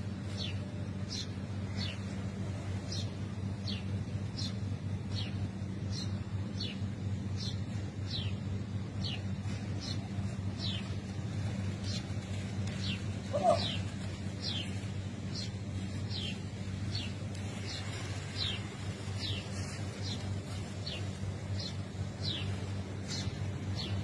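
A small bird chirping over and over: short falling chirps, a bit more than one a second, over a steady low hum. One brief, louder call cuts in about halfway through.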